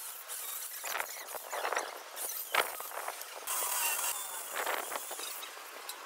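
Scattered clinks and knocks of metalwork on steel-framed mesh doors, with one sharper click about two and a half seconds in and a hissing spell of about two seconds just past the middle.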